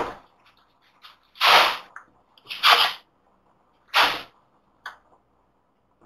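Foam packing inserts scraping and rustling against a desktop computer tower as they are pulled off it, in four short rough bursts and a fainter one near the end.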